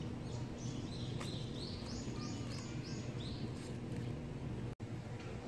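A songbird singing a run of six or seven short rising notes, about three a second, over steady low outdoor background noise.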